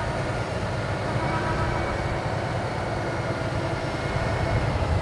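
Diesel engine of a heavy-haul semi tractor running under load as it pulls a mega load slowly toward the listener: a steady low rumble that grows a little louder near the end.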